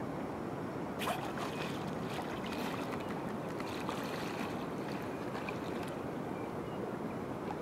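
Shallow water washing at the shoreline, with wind on the microphone. From about a second in, water splashes and crackles for a few seconds.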